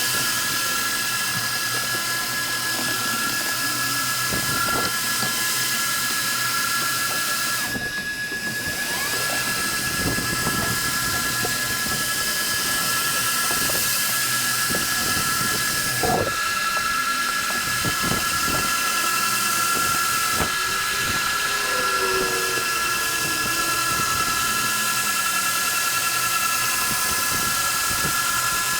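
Electric sander running steadily on wooden deck boards, a high-pitched whine with a hiss over it, briefly dipping about eight seconds in.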